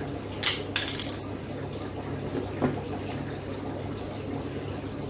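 A few short clicks and knocks, about half a second and a second in and again near the middle, over a steady low hum with a faint sound of running water.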